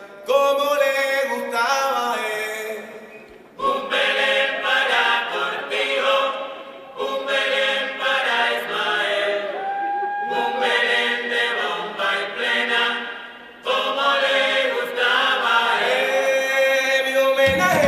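Voices singing unaccompanied in phrases of a few seconds with short breaks between them. Right at the end a fuller, louder sound comes in.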